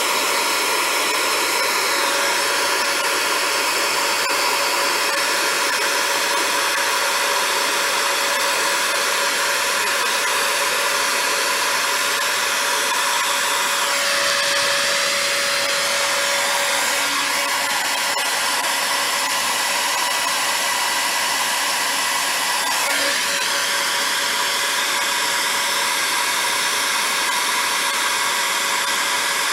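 Handheld heat gun running steadily to shrink heat-shrink tubing over bullet connectors: an even rush of hot air with a steady whine.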